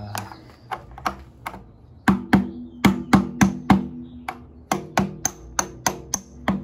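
A mallet knocking a metal pipe against a stuck stretching pipe to drive it out of a nagado taiko's hide loops (mimi). A few light taps, then from about two seconds in two runs of sharp knocks, about three or four a second, each leaving a short ringing tone.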